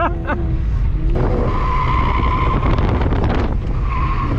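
Car tyres squealing under hard cornering at the limit of grip, over the engine's low drone, heard from inside the cabin. The squeal starts about a second in, holds for about two and a half seconds, breaks off, then comes back near the end.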